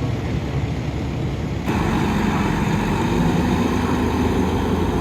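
Steady engine noise from a vehicle, jumping abruptly louder a little under two seconds in.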